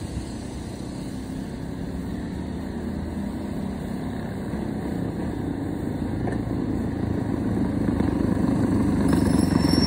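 Coleman minibike's small single-cylinder engine running with its throttle zip-tied wide open, growing steadily louder as the bike approaches.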